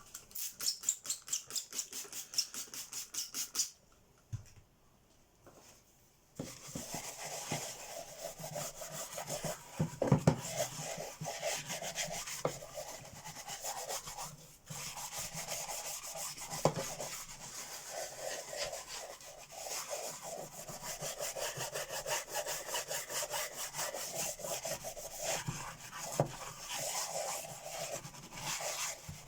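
Scrubbing at old tape residue on a vacuum cleaner's faceplate with all-purpose and cream cleaner: quick, even back-and-forth strokes at about five a second, a pause of about two seconds, then scrubbing again, dense and continuous.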